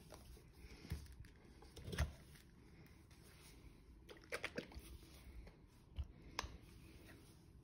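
Plastic squeeze bottles of acrylic paint being handled, picked up and set down: a scattering of light knocks and taps, the loudest about two seconds in and a quick cluster a little after four seconds, over quiet room tone.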